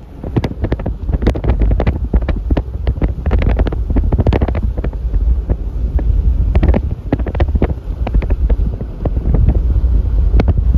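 Strong wind blowing across the microphone: a loud, constant low rumble broken by frequent crackling pops from the gusts.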